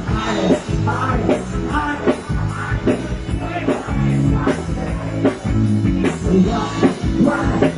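Live rock band playing an instrumental passage: electric guitar and bass over a steady drum beat.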